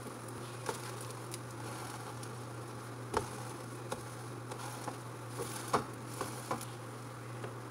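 A thin cornstarch pancake frying quietly in a nonstick frying pan, a faint even sizzle over a steady low hum, with a few light taps as a silicone spatula presses the pancake, the clearest about three seconds in and near six seconds.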